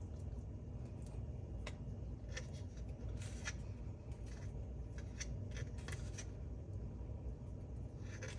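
Scattered light clicks and rustles of small parts and tape being handled, irregular and clustered in the middle, over a steady low hum.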